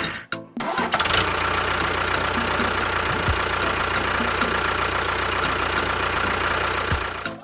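An engine running steadily, with a low hum and a faint regular ticking; the sound drops out briefly just after the start, then carries on.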